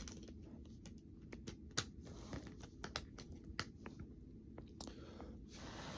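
Faint scattered clicks and ticks with light rustling from a plastic Blu-ray case and discs being handled, with a short soft rustle near the end.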